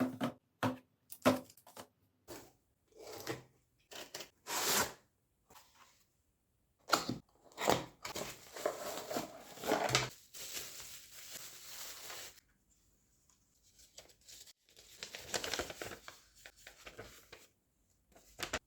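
Packaging being opened by hand: a string of sharp clicks and short scrapes, then longer spells of tearing and crinkling about eight seconds in and again about fifteen seconds in.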